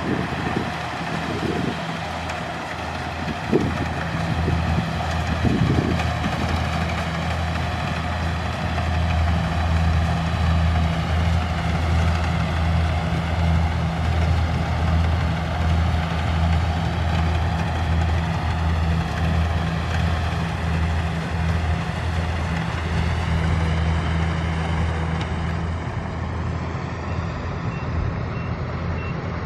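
Kubota rice combine harvester's diesel engine running steadily, with a few knocks in the first seconds. A faint beep repeats evenly near the end.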